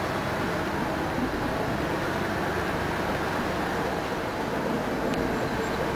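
Steady road and engine noise of a car driving along, heard from inside the car.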